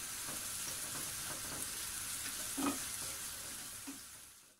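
Chopped onions sizzling in hot soybean oil in a nonstick frying pan on medium heat, stirred with a spatula. A few short scrapes of the spatula against the pan, one louder about two and a half seconds in.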